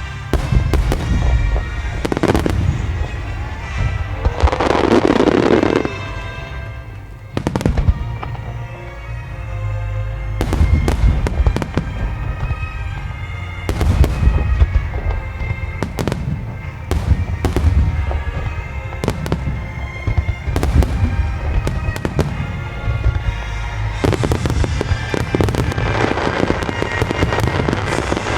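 Fireworks shells bursting in a display, with many sharp reports and heavy low booms, and dense crackling about four seconds in and again near the end. Orchestral-style music from the show's loudspeakers plays underneath.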